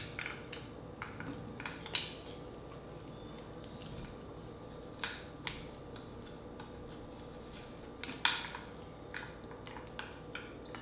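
Green-lipped mussel half-shells clicking and clinking against each other and the plate as they are picked up and moved by hand, with a few louder clinks about two, five and eight seconds in.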